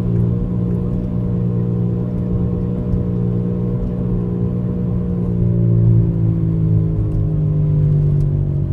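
2004 Buick Rendezvous's loud droning noise while driving: a steady low hum with overtones that slides down in pitch from about five seconds in. Per the owner, the noise goes away only when the wheel is turned left.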